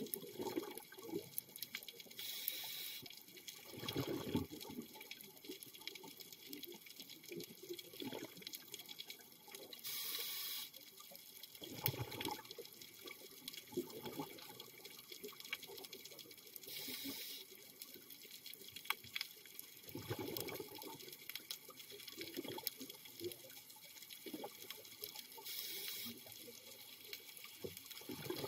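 Scuba diver breathing underwater through a regulator. Four short hissing inhalations come about every 7 to 8 seconds, each followed by a burst of exhaled bubbles burbling out. A constant faint crackle of clicks runs underneath.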